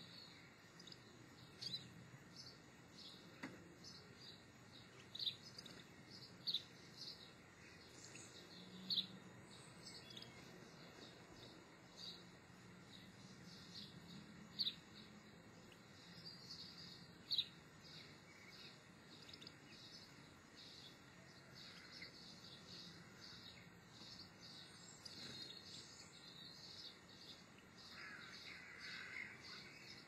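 Faint small-bird calls: a steady run of short, high chirps, with half a dozen sharper, louder ones standing out.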